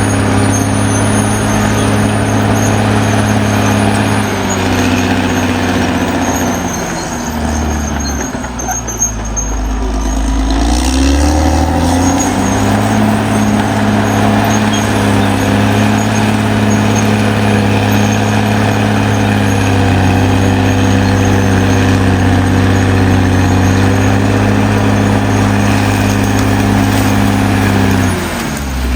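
Caterpillar D6R XL bulldozer's diesel engine running at steady revs. About seven seconds in, the engine note sags and drops in pitch for a few seconds, then climbs back up. It dips briefly again near the end.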